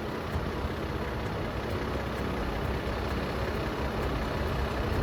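Off-road vehicle engine running steadily at low speed, growing slightly louder.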